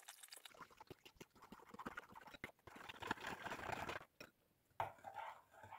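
Metal spoon stirring soapy liquid in a glass bowl, faintly clinking and scraping against the glass in irregular small ticks, with a short pause near the end.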